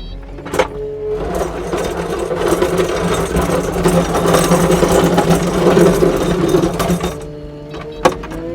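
Kubota SSV65 skid steer's diesel engine running under load with a steady hum and a fast mechanical clatter. It grows louder for several seconds in the middle and eases off about seven seconds in.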